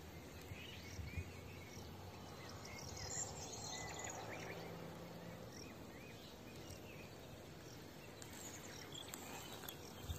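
Faint countryside ambience: small birds chirping now and then over a quiet steady hiss.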